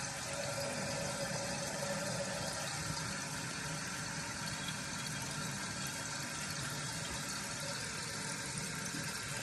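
Toilet tank refilling through a newly fitted fill valve: a steady hiss of water running into the tank, not yet shut off. A faint steady tone sits over it for about the first three seconds.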